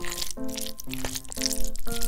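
Background music: a melody of short pitched notes changing several times a second.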